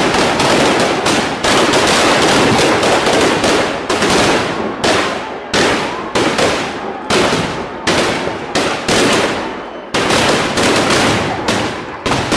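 Firecrackers packed inside burning Dussehra effigies going off in a dense, rapid crackle of bangs. In the second half the strings break off and start again sharply every second or so.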